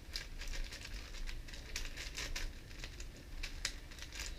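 Quick, irregular plastic clicks of a GAN 4x4 speed cube's layers being turned by hand, the inner slices catching and locking up on turns.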